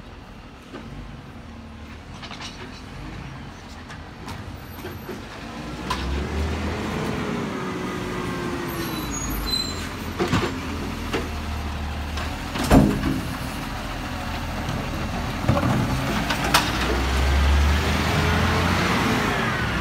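Side-loader garbage truck's diesel engine getting steadily louder as the truck approaches, revving up and back down twice. Several sharp metallic clunks break in, the loudest a little past the middle.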